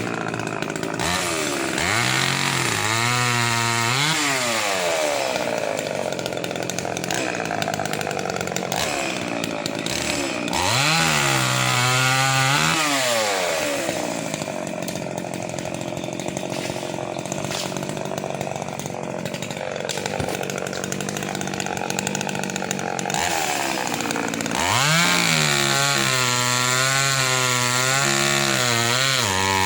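Chainsaw revving up and cutting wood. Its engine pitch climbs and falls back three times, with stretches of rougher, steadier running between.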